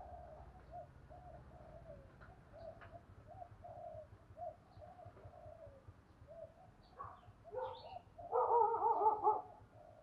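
Female spotted dove cooing: a run of soft, short coo notes repeated a couple of times a second, then a louder, fuller stretch of cooing a little over eight seconds in that lasts about a second.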